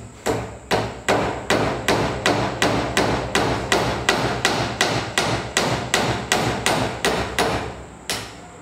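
Hammer driving a steel nail into a thin softwood strip: a quick, even run of about twenty light taps, some two and a half a second, then a short pause and one final blow near the end.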